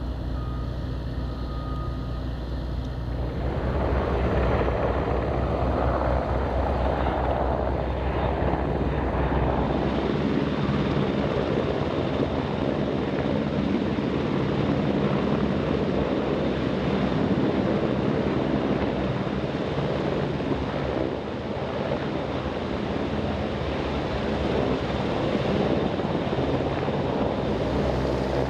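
A CH-149 Cormorant helicopter's rotors and three turboshaft engines running as it hovers and sets down. The sound swells about three seconds in into a loud, steady rush as the rotor downwash blows across the microphone.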